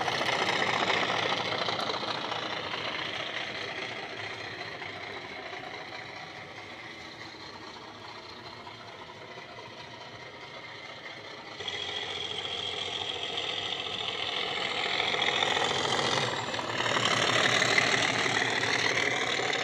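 Class 37 diesel engine sound played from a Loksound 5 sound decoder through the EM1 speaker of a Bachmann model locomotive under way. It fades as the locomotive moves away, then steps up suddenly about twelve seconds in and grows louder again as it comes back toward the camera.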